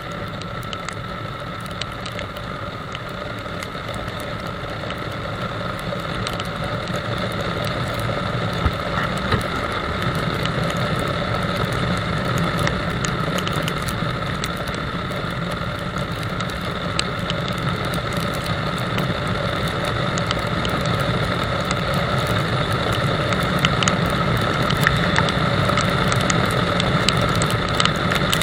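Motorcycle engine and road noise while riding at a steady speed: a steady drone that slowly gets louder, with scattered light ticks.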